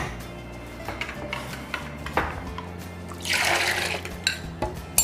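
Coffee and milk mixture poured from a glass measuring jug into a plastic blender jar, a brief splashing pour lasting under a second about three seconds in, with a few light knocks of the jug and jar on the counter.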